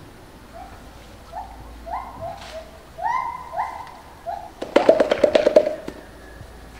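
Western gorilla's chest-beating display: a series of short hoots rising in pitch, then a rapid volley of about ten hollow chest beats in just over a second.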